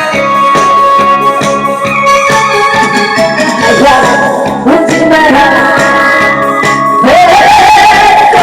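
Music: an electronic organ playing a melody over a steady beat, with a singing voice coming in about seven seconds in.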